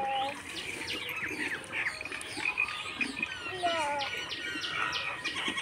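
Birds chirping again and again, with short, quick high chirps coming in clusters and a few lower sliding calls mixed in.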